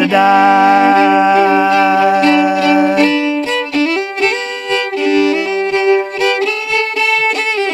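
Fiddle playing a folk melody, with a man's sung voice holding the last word of a line near the start.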